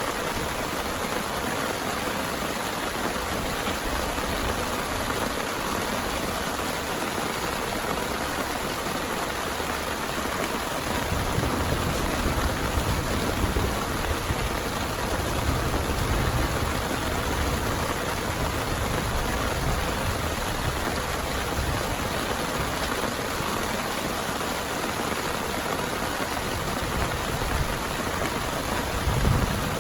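Heavy rain falling steadily, with a low rumble swelling for several seconds about a third of the way in and again briefly near the end.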